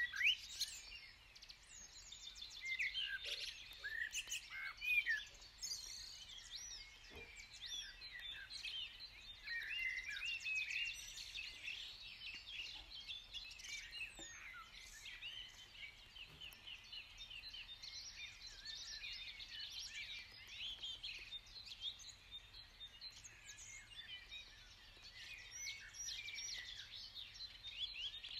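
A chorus of many birds singing at once: overlapping chirps, trills and whistled notes running throughout.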